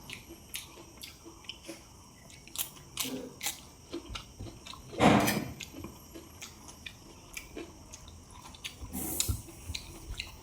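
Close-miked mouth sounds of someone eating a rice-and-fish-curry meal: chewing, with small wet clicks and smacks. About five seconds in there is one louder, fuller sound lasting about half a second, and near the end a short hiss.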